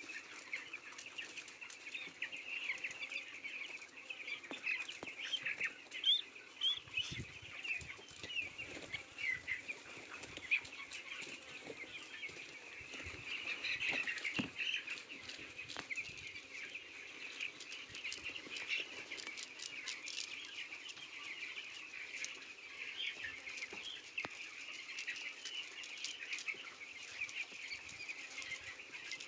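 A flock of chickens calling, many short overlapping calls at once making a continuous chatter, with scattered small clicks and knocks.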